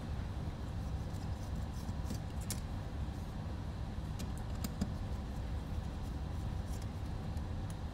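Light, scattered metallic clicks as a hex driver backs small screws out of a carbon-fibre drone frame and the screws are handled, over a steady low hum.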